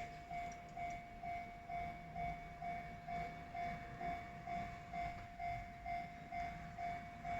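Japanese level-crossing warning bell ringing in an even, repeating ding-ding of one pitched tone at about two strikes a second, the signal that a train is approaching and the crossing is closed.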